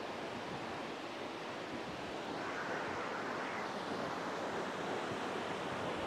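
A high waterfall rushing: a steady, even sound of water falling from a height.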